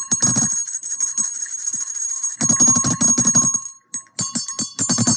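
Two small brass hand bells shaken in turn, their clappers striking rapidly. One bell is whole and the other has a short crack cut into its rim, which gives it a different, deeper tone. The first bell rings until nearly four seconds in, and after a brief gap the second bell starts.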